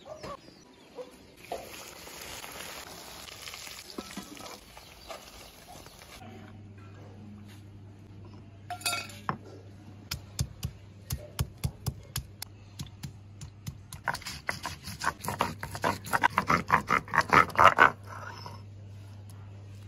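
Garlic cloves being crushed and ground on a flat stone grinding slab (sil) with a stone roller: scattered knocks at first, then a fast run of loud knocks and crunches for about four seconds near the end. A steady hiss fills the first six seconds.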